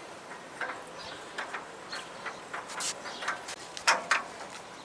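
Loading ramps being set into a welded metal rack: scattered clicks and knocks, with a sharp double knock about four seconds in.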